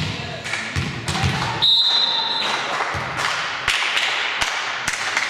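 Basketball bouncing and thudding on a gym court, with repeated sharp knocks over voices echoing in the hall. A short steady high-pitched tone sounds about two seconds in.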